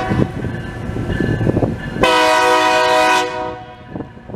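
A narrow-gauge White Pass & Yukon Route diesel locomotive running as it approaches, with a low engine rumble. About two seconds in it sounds its air horn once, a loud blast of several tones at once lasting just over a second, then fading.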